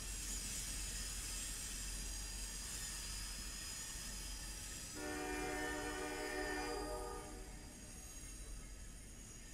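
Freight train rolling past with a steady noise and a thin high whine. About five seconds in, a locomotive air horn sounds one chord for about two seconds.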